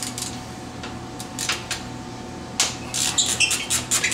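Light metallic clicks and clinks of a 15 mm wrench working the bolts on a Polaris RZR's rear hub as they are loosened, coming in an irregular cluster about a second in and a denser run near the end.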